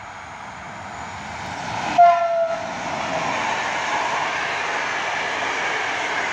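An EP07 electric locomotive hauling passenger coaches approaches, its noise growing. About two seconds in there is a short horn blast whose pitch drops slightly, then the loud, steady rolling noise of the locomotive and coaches passing close by.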